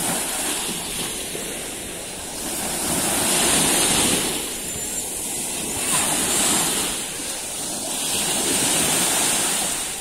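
Small waves washing up onto a sandy beach and breaking in foamy surf, the wash swelling and easing in turn: loudest about three seconds in, again around six seconds, and once more near the end.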